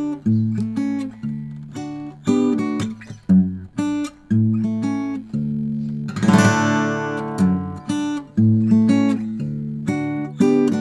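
Steel-string acoustic guitar played fingerstyle: a steady bass line under picked melody notes, with one fuller brushed chord about six seconds in.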